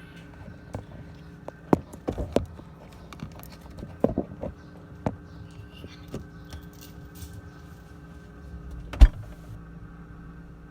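Scattered knocks and clicks of things being handled, with one loud thump about nine seconds in, over a steady low hum.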